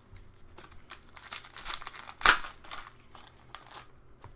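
A hockey card pack's foil wrapper crinkling as it is torn open by hand, with one sharp, loud tear a little past halfway through.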